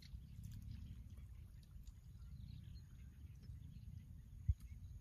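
Wind buffeting the microphone as an uneven low rumble, with faint scattered chirps of small birds over it. A single short low thump about four and a half seconds in.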